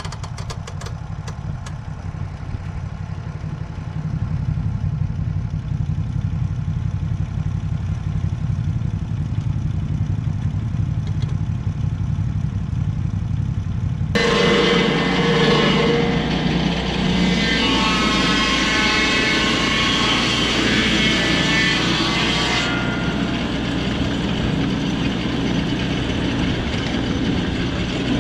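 Petrol engine of a Lucas swing-blade portable sawmill running steadily, with a few light clicks just after the start. About halfway through it suddenly becomes much louder and fuller, the engine at full revs with a whining blade cutting through a blackbutt log.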